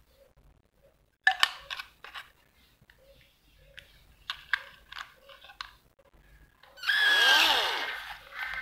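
Plastic clicks and knocks as a red cordless drill is handled, then its motor spins up under the trigger for about two seconds, the whine dipping and rising in pitch as the variable-speed trigger is worked, and fading as it coasts down without a brake.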